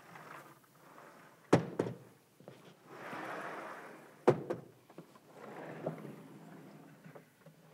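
Sliding chalkboard panels being moved along their tracks, with a rumbling slide and two loud knocks as the panels hit their stops, about a second and a half in and again about four seconds in. A longer rubbing sound follows near the end.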